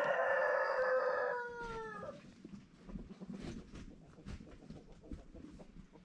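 A rooster crowing: one long call, already under way, that holds and then drops in pitch as it ends about two seconds in, followed by faint scattered knocks and rustling.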